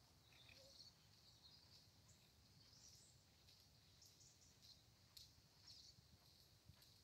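Near silence: faint outdoor ambience with scattered high chirps of birds.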